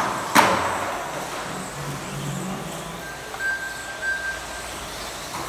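1/12-scale GT12 electric RC cars with 13.5-turn brushless motors running on a carpet track, their thin motor whine coming and going as the cars pass. A sharp knock about half a second in.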